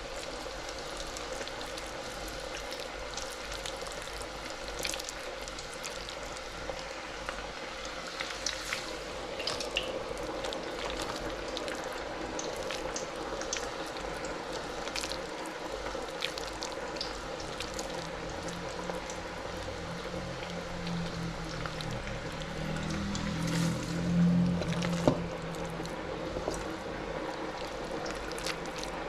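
Batter-coated chicken bhajis deep-frying in oil at about 160 °C, bubbling and crackling steadily. A low hum swells briefly about two-thirds through and ends with a single knock.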